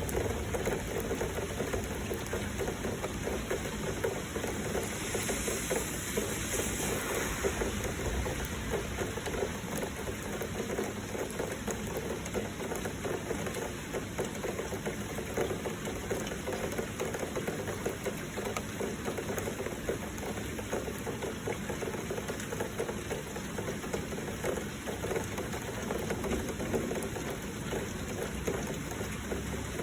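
Heavy rain falling steadily, with the rush of flowing water.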